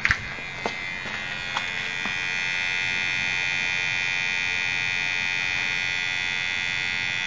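A few light clicks, then a steady electrical buzz from the 1999 Saab 9-3 with the ignition switched on during a no-start diagnosis; the buzz grows in about two seconds in and holds steady.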